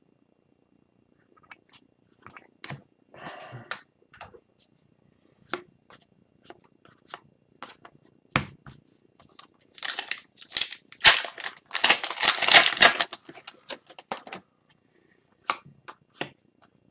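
Hockey trading cards being handled and flipped through by hand: scattered soft clicks and slides of card stock, with a louder stretch of rustling and crinkling from about ten to thirteen seconds in.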